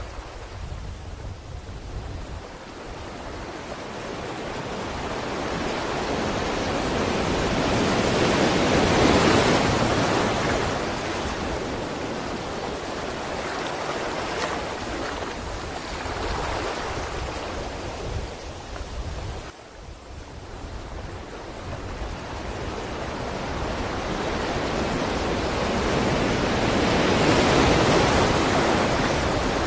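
Sea waves washing onto a shore in a steady surf. The sound swells slowly to a peak about a third of the way in and again near the end, with a brief sudden dip about two-thirds through.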